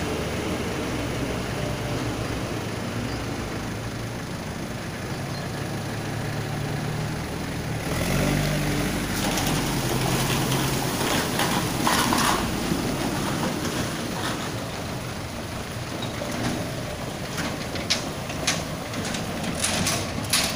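Mitsubishi Colt Diesel light truck's diesel engine running at low speed as the truck creeps along a wet, muddy, rutted road. About eight seconds in the engine note changes and the sound grows louder and noisier as it passes close, with a few sharp knocks near the end.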